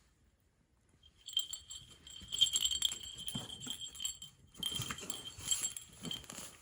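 Small bell on a cat's bow tie jingling in quick, irregular shakes as the cat plays with it. It starts about a second in, pauses briefly past the middle, then jingles again.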